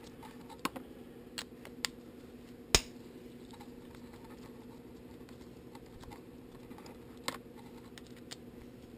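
Small sharp metal clicks and taps, about five scattered through the stretch, the loudest near three seconds in, as the screws of a Tomos moped centrifugal clutch are worked loose by hand, over a steady low hum.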